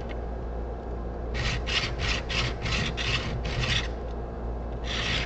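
Steel chisel back being rubbed back and forth on a 400-grit sharpening stone, a quick run of short scraping strokes at about three a second, a pause, then the strokes starting again near the end. The back is being flattened and polished to take off the burr before the bevel is worked.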